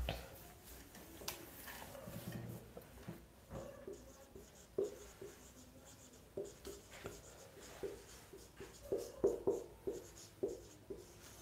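Marker pen writing on a whiteboard: a run of short squeaks and scratches from the separate pen strokes, busiest in the last few seconds.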